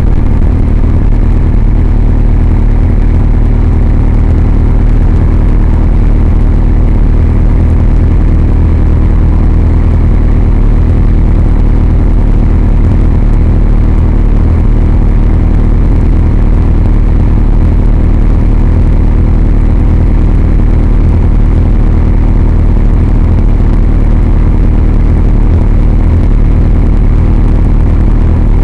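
Kawasaki Z750S inline-four engine idling steadily, heard through the camera mounted on the bike as a heavy, unchanging low rumble.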